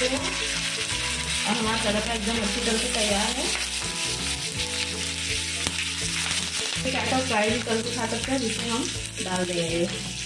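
Cumin, mustard and sesame seeds with curry leaves sizzling steadily in hot oil in a non-stick frying pan, stirred with a wooden spatula. Background music plays over it.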